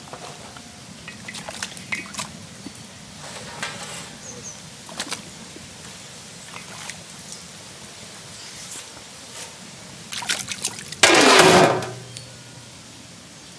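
Water trickling and dripping as live spiny lobsters are lifted out of a pot of washing water, with scattered light clicks and knocks of shells and the pot. About eleven seconds in comes a loud rush of water, about a second long.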